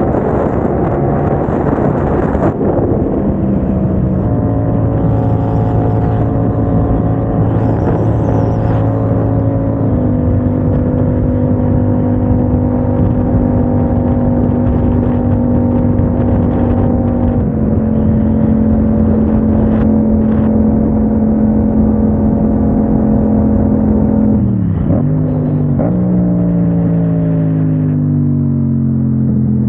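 Yamaha motorcycle engine running at a steady motorway cruise, its note holding level and stepping in pitch a few times, dipping and recovering briefly about 25 seconds in, then sliding down near the end as the bike slows. An even rush of wind and road noise runs underneath.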